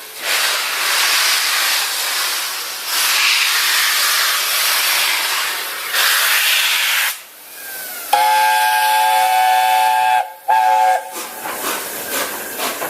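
Steam locomotive letting off steam in a loud, steady hiss, then sounding its whistle: one long blast of about two seconds and a short second blast straight after.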